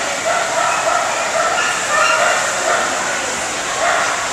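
A dog barking in a rapid series of short, high yapping barks, about three a second, with a louder bark near the end, over a steady background hiss.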